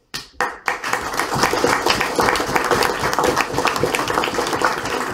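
Audience applauding: a few first claps, swelling within about a second into steady clapping from many hands.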